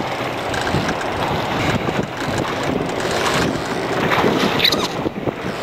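Wind buffeting the microphone with a steady wash of sea water around a small open boat.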